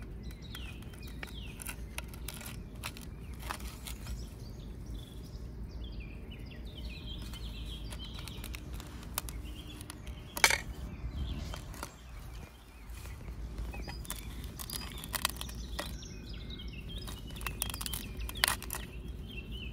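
Birds chirping in the background, with scattered light clicks and taps of a knife against a stainless steel plate as herb butter is sliced and handled. One louder knock comes about ten seconds in.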